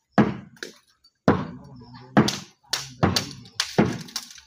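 Repeated heavy thuds, about nine in four seconds at uneven spacing, from earth and stones being rammed down around the foot of a timber post to set it upright.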